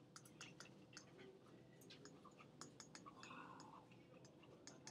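Near silence with faint, scattered clicks and light scratching: a digital pen tapping and writing on a pen tablet's surface.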